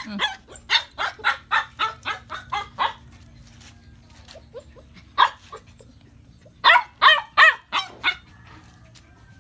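A dog barking in short barks: a quick run of about three a second for the first three seconds, a single bark a little past halfway, then a louder burst of four barks near the end.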